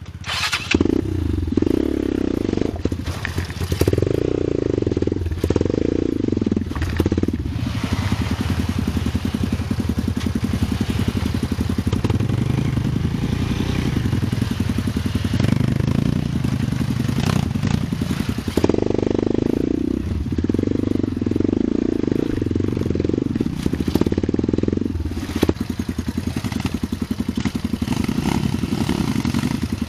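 Trail bike engine fitted with a racing CDI and racing ignition coil, running and revving up and down as it climbs a rocky trail, with clatter from the bike jolting over rocks.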